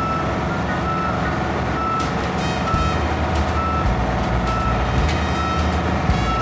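Heavy plant's warning beeper sounding short single-pitch beeps about once a second over an engine running steadily underneath: the motion alarm of machinery on the move.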